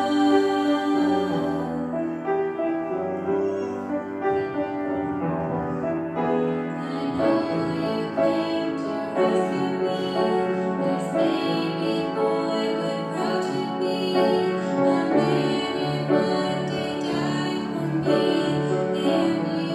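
A small group of girls singing together with piano accompaniment.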